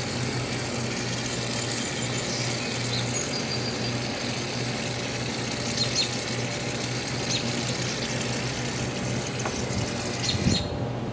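Aerosol cans of shaving cream spraying foam onto paper plates, a wet hissing and sputtering, over a steady low mechanical hum.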